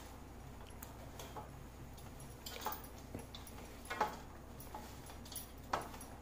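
Hands mixing a dry mixture of chopped nuts, seeds and ground fenugreek in a steel bowl: a faint rustle with a few light clicks, the sharpest about four seconds in.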